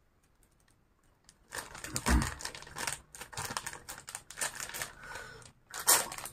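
Thin plastic bag crinkling and rustling in the hands as sauce is squeezed out of it, starting about a second and a half in as an irregular run of sharp crackles. There is a low thump about two seconds in and a louder crackle just before the end.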